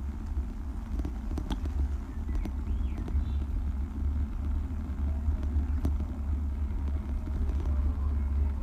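Bicycle riding over brick paving: a steady low rumble of tyres on the bricks and wind on the microphone, with scattered small rattles and clicks.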